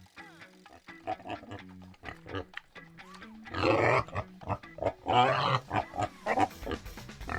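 Wild boar calls: a few short calls, then two long, loud calls about halfway through. Background music with a steady bass line plays throughout.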